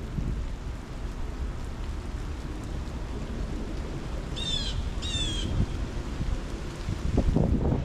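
Strong wind rumbling and buffeting the microphone, gusting a little harder near the end. About four and a half seconds in, a bird calls twice in quick succession.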